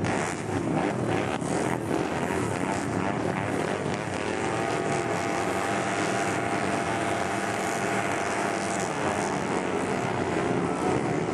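Junior speedway motorcycle engines running and revving together, held at a steady wavering pitch that rises a little near the end.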